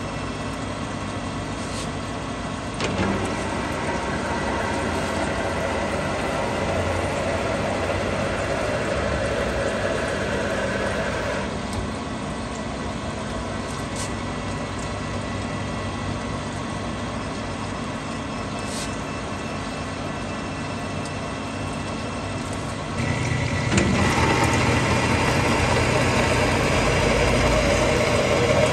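Geared metal lathe running under power while single-point threading an Acme lead screw with flood coolant. It is a steady machine hum that grows louder about three seconds in, eases back near twelve seconds, and grows louder again around twenty-three seconds.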